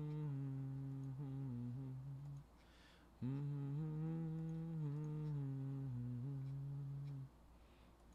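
A man humming a slow, held tune, in two long phrases with a short pause for breath about two and a half seconds in.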